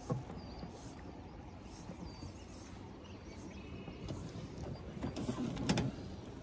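Steady low rush of river current and wind around a drifting raft, with a few faint bird chirps. About five seconds in there is a short louder clatter of knocks.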